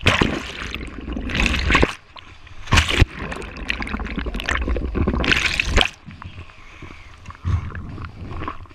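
Water gurgling, sloshing and rushing over an action camera as a kayak goes under and is rolled back upright. It comes in several loud surges with quieter gaps between.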